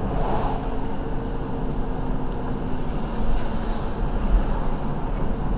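Car driving along a street, heard from inside the cabin: steady engine hum and road noise.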